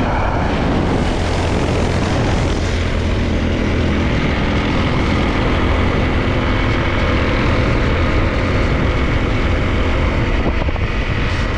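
250 cc dual-sport motorcycle engine running at a fairly steady pace while being ridden off-road.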